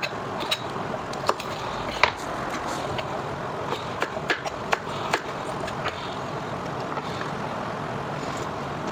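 Chef's knife chopping leafy green vegetable stems on a cutting board: irregular sharp knocks of the blade against the board, sparser in the last few seconds, over a steady background hiss.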